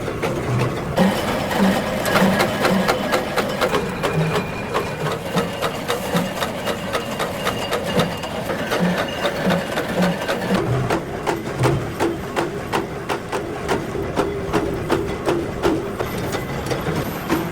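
Ammunition-making machinery running with a fast, even clatter of repeated mechanical strokes and clicks, a few per second, over low rhythmic thuds.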